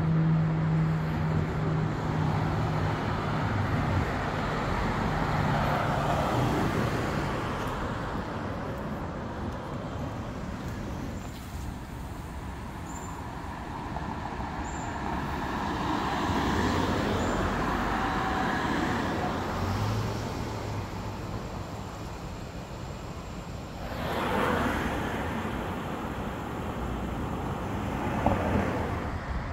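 Street traffic: cars passing on a city street, the noise swelling and fading several times, most sharply about three quarters of the way through. A steady low hum fades out in the first few seconds.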